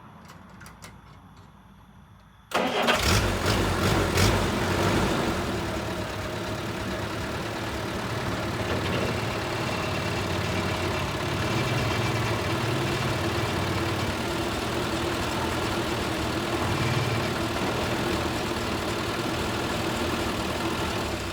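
A motor starts abruptly about two and a half seconds in, runs loudest for the first couple of seconds, then settles into a steady run that begins to wind down at the very end.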